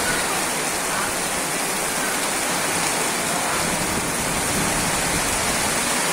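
Heavy typhoon rain pouring down steadily, a dense, even hiss of falling water.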